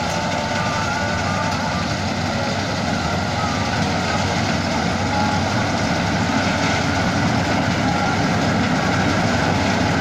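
Combine harvester running steadily while cutting rice, a continuous engine and machinery drone that grows slightly louder as the machine comes closer.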